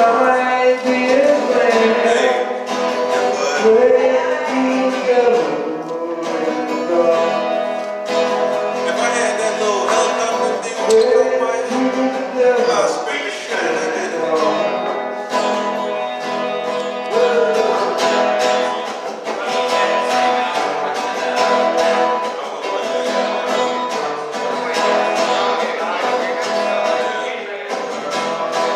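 Live song: an acoustic guitar strummed steadily with a voice singing the melody over it.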